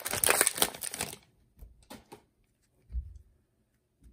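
Cellophane wrapper of a trading-card pack crinkling and tearing as it is pulled open, stopping about a second in. Then come a few soft clicks and a light thump as the stack of cards is handled.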